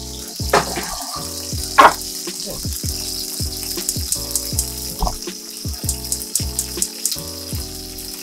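Breaded chicken pieces frying in hot oil in a cast-iron grill pan, with a steady sizzle. Background music with a beat plays over it: deep falling bass notes about twice a second and regular hi-hat ticks.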